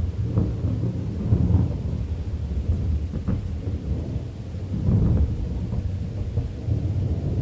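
Thunder rumbling low and continuous, swelling louder about a second in and again about five seconds in, over steady rain.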